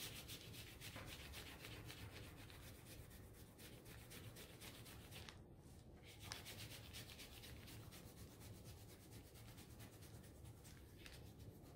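Wax crayon rubbed back and forth over mixed-media paper: a faint, scratchy scribbling of many quick strokes, with a short break a little over five seconds in.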